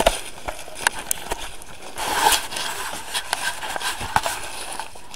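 Footsteps outdoors: irregular steps and scuffs, with a louder rustle about two seconds in.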